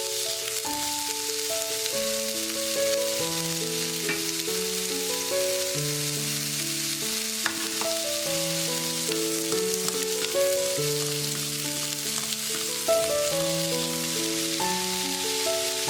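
Butterbur stems sizzling as they stir-fry in a pan, a steady hiss, over background music of held melodic notes.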